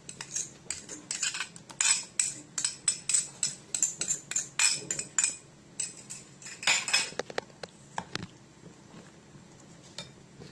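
A spatula clicking and scraping against a small dish and a mixing bowl as diced mango is scraped in and worked into a cream cheese mixture. A quick run of clinks lasts about five seconds, with another short cluster a little later and only a few faint taps near the end.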